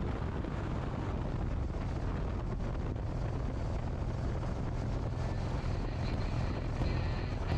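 Motorcycle riding along at a steady speed: a steady low engine rumble with wind and road noise.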